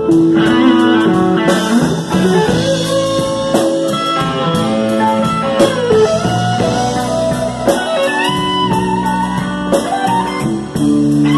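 Live band playing, led by an electric guitar whose sustained notes bend up and down, over electric bass and a drum kit.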